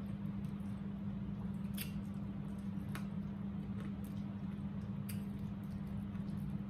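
Close-up eating sounds as fried chicken is pulled apart and chewed: soft wet chewing and mouth smacks with a few sharp clicks, over a steady low hum.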